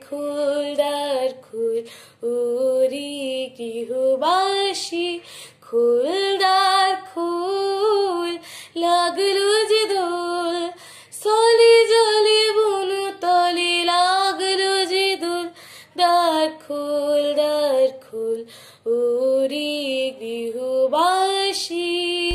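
A boy singing solo with no accompaniment: a melodic song in phrases of a few seconds, with short breaks for breath between them.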